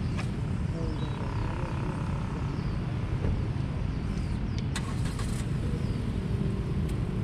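Steady low outdoor rumble with faint high falling chirps repeating through it and a brief cluster of clicks about five seconds in.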